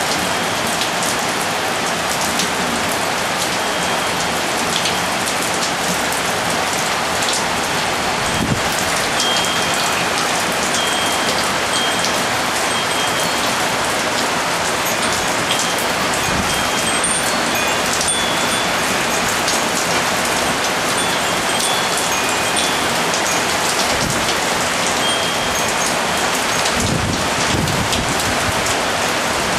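Steady heavy rain shower falling on hard surfaces, with a wind chime giving short, high, light notes now and then.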